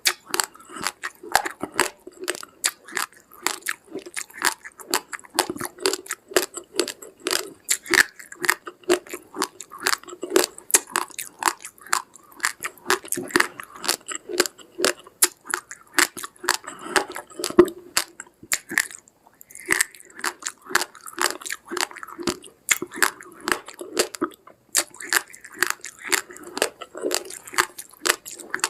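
Raw, uncooked rice grains being chewed: a dense run of sharp crunches, several a second, with a brief pause about two-thirds of the way through.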